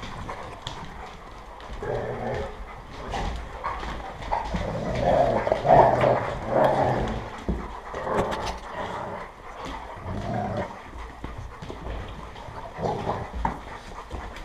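A group of dogs at play close up: panting, with short growls and whines coming in irregular bursts and a few knocks as they jostle close by.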